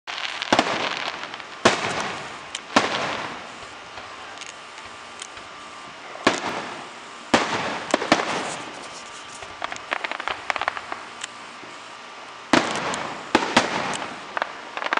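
Aerial fireworks shells bursting: sharp bangs in groups of two or three, each trailing off in a crackling hiss, with runs of small crackling pops between them.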